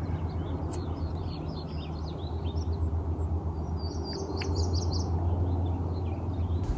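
Small songbirds chirping and twittering, a quick run of high chirps through the first five seconds, over a low steady hum.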